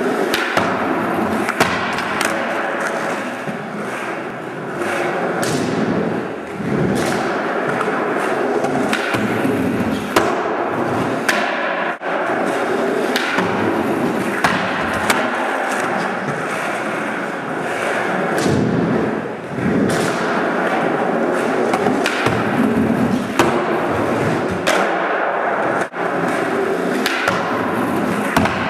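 Skateboard wheels rolling over the floor and a wooden manual pad, with repeated sharp clacks of tail pops, flip tricks and board landings on the wood.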